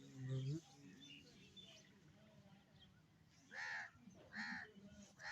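Faint bird calls in the background: three arched calls about a second apart in the last two seconds.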